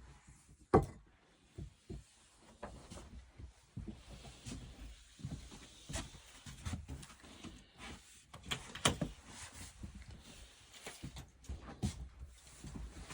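Scattered knocks and clatter of handling, with a sharp knock under a second in and another about nine seconds in.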